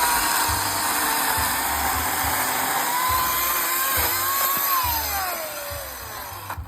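Chainsaw cutting through an oak log at full speed, with a steady high whine and a rasping cut. Over the last two seconds the pitch falls as the revs wind down, and the sound drops away near the end.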